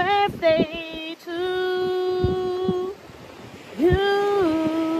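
A solo voice singing unaccompanied, holding long sustained notes with a short slide into each, pausing briefly about three seconds in, then holding a high note that steps down and carries on.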